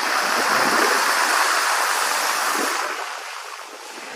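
Steady rushing hiss of water, fading out over the last second.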